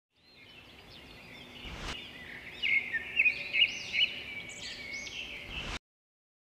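Birds chirping and calling over a steady outdoor background, fading in at the start, with a dull knock about two seconds in. The chirps are busiest in the middle, and the sound cuts off abruptly near the end.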